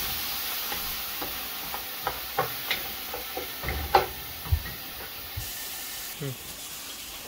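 Hot oil sizzling steadily as gulgula (sweet flour fritters) deep-fry in a pan, with scattered light clicks and taps of utensils.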